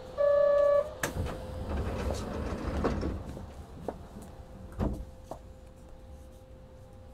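Kobe Municipal Subway 1000 series train's door buzzer sounding once, briefly, then the sliding passenger doors running shut with a thud about five seconds in.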